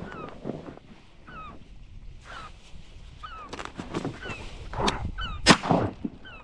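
Birds calling over a marsh: short, falling whistled notes repeated many times. A sharp knock sounds about five and a half seconds in.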